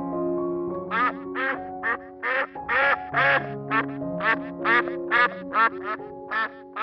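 Duck quacking: a rapid run of short quacks, about two or three a second, starting about a second in, over soft piano music.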